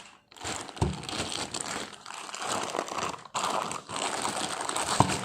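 Packaging being handled and crinkled during an unboxing, in an irregular rustle with short pauses. There are two sharp knocks, one about a second in and a louder one near the end.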